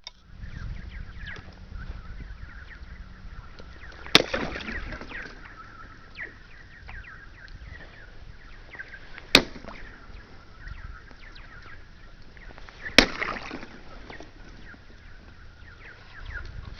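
A stick striking the ice of a frozen pond three times, each hit ringing out across the ice with a weird, echoing twang. Faint chirps from the ice continue between the hits.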